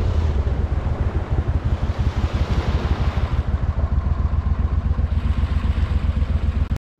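ProDrive mud motor pushing a flat-bottom boat along at speed: a steady run of fast, even engine pulses under a rushing hiss. The hiss eases a little about halfway through, and the sound cuts off suddenly near the end.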